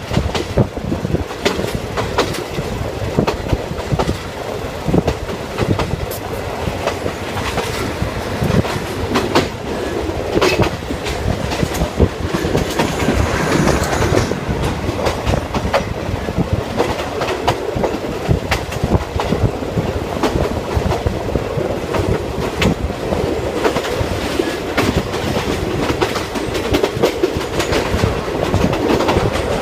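State Railway of Thailand ordinary passenger train running, heard from on board: wheels clattering over the rail joints with many irregular clicks and knocks over a steady rumble.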